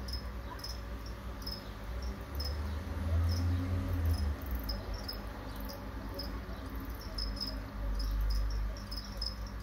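Crickets chirping: short, high chirps repeated about twice a second throughout. A low rumble rises twice, about three seconds in and again near the end.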